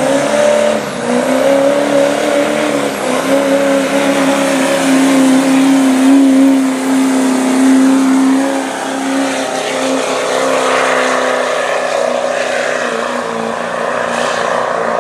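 Chevrolet pickup's Duramax V8 turbodiesel running flat out under full load while pulling a weight-transfer sled: a steady, held high-rev engine note over a wash of noise, easing a little near the end of the pull.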